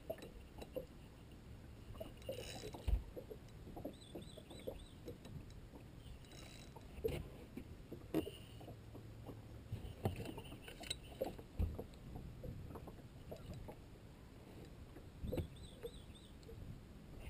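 Water lapping and knocking against a small fishing boat's hull, with scattered light bumps and a faint low hum at times. A bird chirps briefly twice.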